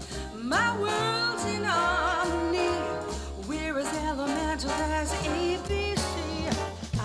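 A song with a singer's voice over a steady bass and beat, played back through Edifier R1280DB bookshelf speakers and picked up by a microphone in the room. The voice slides up into a held note about half a second in.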